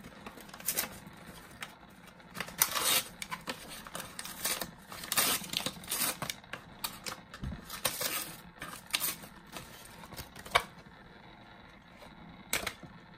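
Stiff plastic blister pack and cardboard backing card of a die-cast toy truck package being pried open and handled: irregular crackles and clicks.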